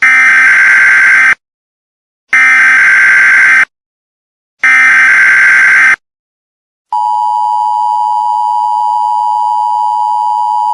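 Emergency Alert System SAME header: three identical bursts of data tones, each about a second and a half long with a second of silence between them. About seven seconds in, the steady two-tone EAS attention signal starts.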